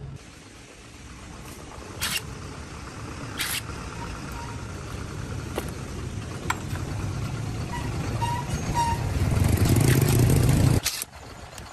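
An engine running, growing steadily louder, with a couple of sharp knocks, then cutting off suddenly near the end.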